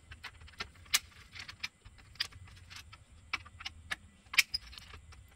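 Irregular small metallic clicks and scrapes of a flathead screwdriver working the terminal screws of a sheet-metal AC disconnect box as its wires are loosened and pulled free, the sharpest clicks about a second in and a little past four seconds.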